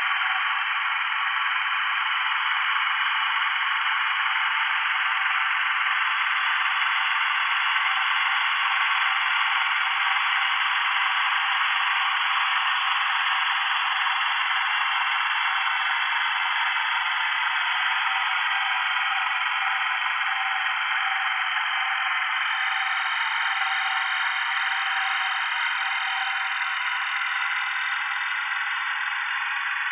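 Dense, steady computer-processed texture built from recorded toad mating calls, layered into a continuous chorus held in the middle of the pitch range, with faint slow gliding tones running through it.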